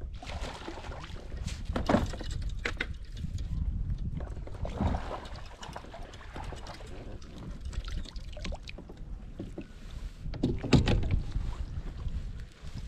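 Wind rumbling on the microphone, with several sharp splashes and knocks as a hooked fish is fought beside a kayak and netted; the loudest comes about two seconds before the end.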